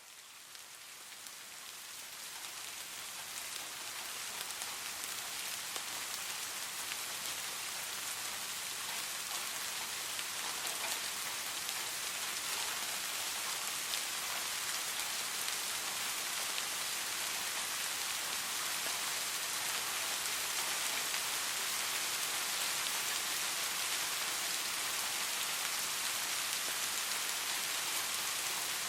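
Soft rain falling steadily, a dense hiss of fine drops. It fades in over the first few seconds, then holds even.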